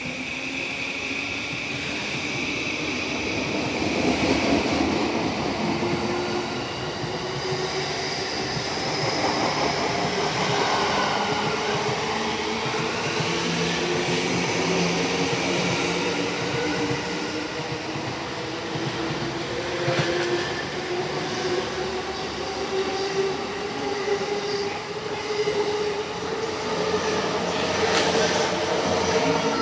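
JR electric commuter train pulling out and accelerating, its traction motors giving several whining tones that climb slowly in pitch, over the rumble of wheels on rail with a few sharp clicks.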